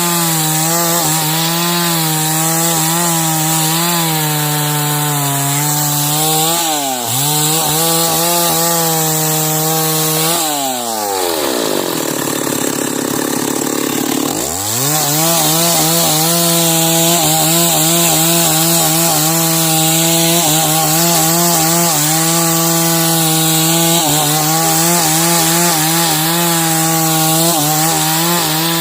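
Two-stroke chainsaw ripping a log lengthwise into timber, running at high revs under load with a wavering pitch. About ten seconds in it drops to idle for roughly four seconds, then revs back up and carries on cutting.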